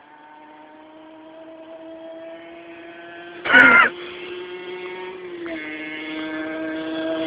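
Aprilia RS50's 50cc two-stroke single-cylinder engine running at a steady pitch, growing louder as the bike approaches. Its pitch dips briefly about five seconds in. A short, loud wavering cry cuts in about three and a half seconds in.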